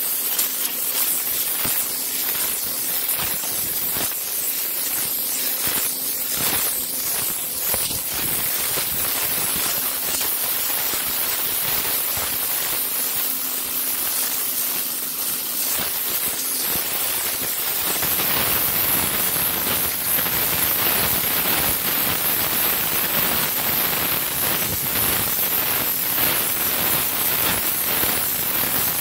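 Pressure washer's jet of water spraying onto a concrete patio with a steady hiss, blasting embedded dirt off the surface. A faint low hum sits under it for the first part; about two-thirds of the way in the hum drops out and the spray sound becomes fuller and slightly louder.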